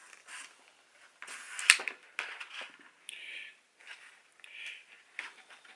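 Utility knife blade shaving the plastic insulation off copper electrical wire as the wire is pulled under it, in a series of short, soft scrapes. A single sharp click comes under two seconds in.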